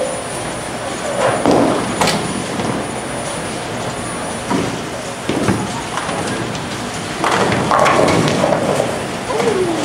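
Bowling alley din: bowling balls rolling down wooden lanes and pins crashing, with sharp knocks and a louder stretch of clatter around seven to eight seconds in.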